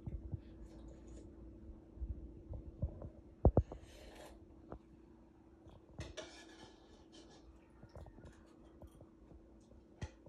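Metal spoon clinking and scraping in a plastic bowl of crunchy cereal as a small child eats, with short bursts of crunching and rustling, over a steady low hum. Two loud thumps come about three and a half seconds in.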